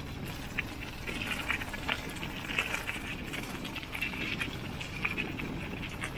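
Footsteps crunching on a loose gravel path at a walking pace, over a steady low rumble.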